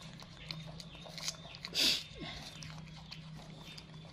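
Young macaques biting and chewing crisp apples: scattered small crunches and mouth clicks, with one louder, longer crunch-like sound about two seconds in. A faint steady low hum runs underneath.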